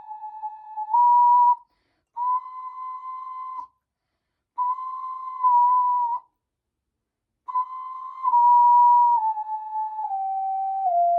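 Luna Celta ocarina played in clear, pure notes: a short climb up the scale, two held high notes separated by pauses, then a stepwise descending scale near the end.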